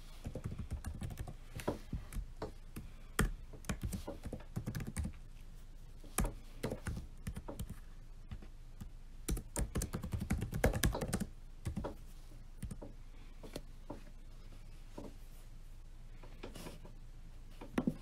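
Typing on a laptop keyboard: quick runs of keystrokes in bursts, thinning to occasional single taps over the last several seconds, with a short cluster of clicks near the end.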